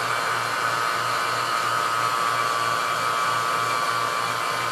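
Vacuum pump running steadily while pulling the chamber down to near 30 inches of vacuum, a whirring noise over a low hum that pulses a few times a second.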